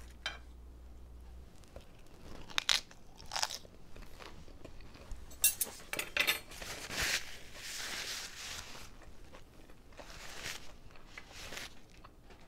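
A person biting into and chewing a crisp lettuce-leaf wrap: a few sharp crunches in the first half, then longer stretches of crunchy chewing.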